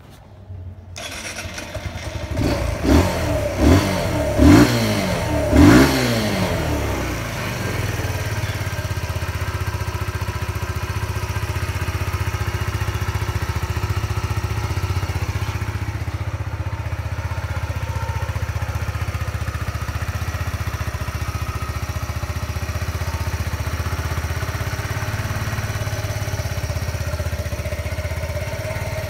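Kawasaki Z125 Pro's 125 cc single-cylinder four-stroke engine starting about a second in, revved in four quick throttle blips that each fall back, then idling steadily. The engine has only about 500 km on it.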